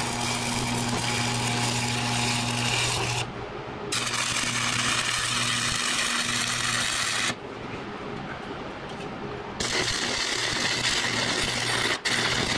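Arc welding on thick steel plate: three runs of steady crackling sizzle, each about three to four seconds, with short pauses between, over a steady low hum.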